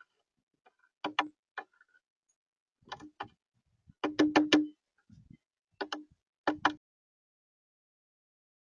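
Bird pecking at a hollow feeder, short clusters of sharp knocks two to four at a time, loudest about four seconds in.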